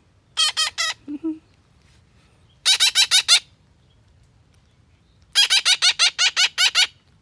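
Young pet parrot calling in three quick runs of repeated high calls, the longest run near the end.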